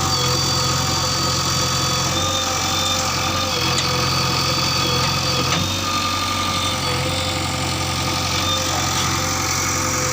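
Heavy diesel engine of an earthmoving machine running steadily, with a whine that holds and then shifts slightly in pitch every second or two.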